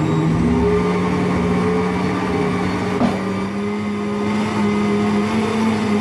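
Countertop blender's motor running, beating a thick chocolate cake batter; its hum rises slightly in pitch as it goes, with a small click about three seconds in.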